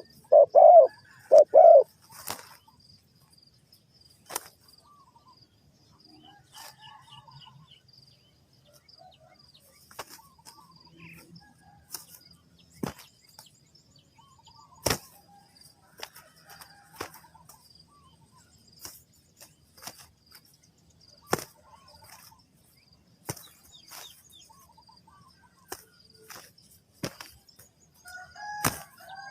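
Spotted dove cooing, a few low rhythmic coo notes in the first two seconds, then stopping. After that come scattered sharp clicks and taps with faint bird chirps, and a chicken calls near the end.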